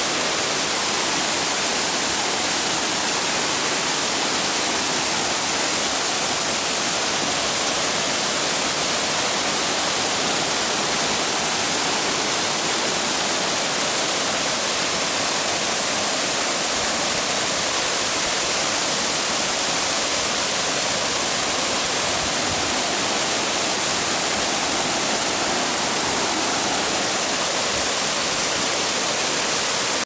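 Waterfall: many thin streams of water falling over a rock face and splashing into a pool, a steady hiss with no change.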